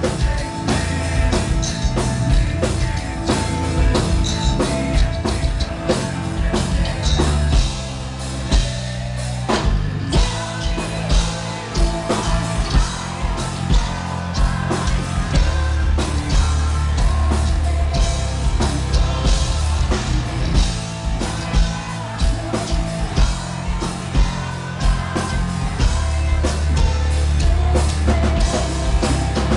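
Gothic metal band playing live: pounding drum kit, distorted guitars and bass under a woman's sung vocal. The drums thin out briefly about eight seconds in and come back in full about two seconds later.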